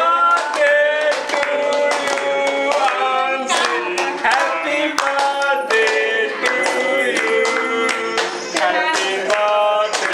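Music with singing, and hands clapping along in a steady rhythm.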